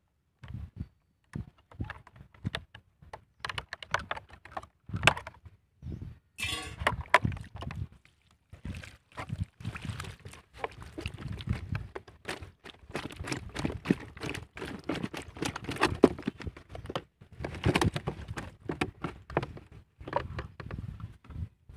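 Handling noise from a plastic-bottle fish trap and its plastic bag: crinkling, knocking and tapping as the trap is opened and emptied. Water spills out, and a catch of eel-like fish wriggles and flops on the grass.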